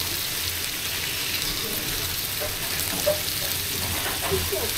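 Skewered swordtip squid (hanchi) sizzling steadily on a hot flat griddle, with a brief knock about three seconds in.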